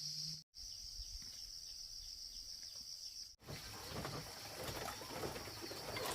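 Steady high-pitched drone of insects such as crickets, with faint short bird chirps; it cuts off sharply about three seconds in, giving way to crackly rustling and clicking.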